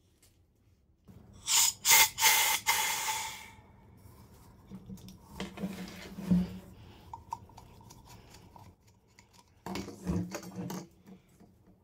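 The trigger lever and valve head of an old CO2 fire extinguisher being handled: metal clicks and rubbing. A loud rushing noise lasts about two seconds, starting a second and a half in, and a short cluster of clicks and knocks comes near the end.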